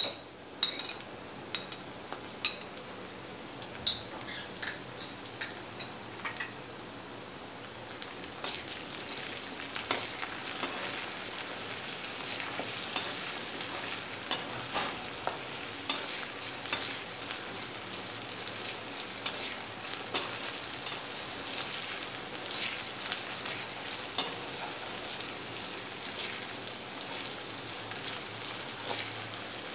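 Chopped onion and garlic-ginger paste sizzling in hot oil in a metal kadai, stirred with a metal spoon that scrapes and clicks against the pan every few seconds. The sizzle gets louder about eight seconds in.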